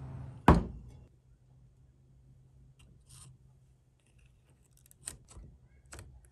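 A steady background hum cuts off with one loud, sharp knock about half a second in. A few soft clicks follow as wooden spring clothespins are pinched and clipped onto thin wooden sticks.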